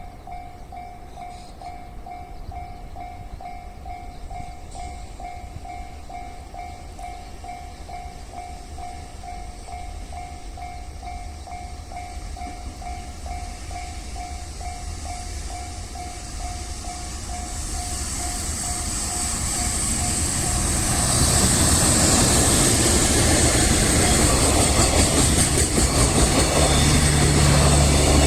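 Japanese level-crossing bell ringing steadily at about two strokes a second. About two-thirds of the way in, a freight train hauled by an EF210 electric locomotive approaches and runs over the crossing. Its wheel-on-rail noise and hiss grow loud and bury the bell, with fast clatter over the rail joints near the end.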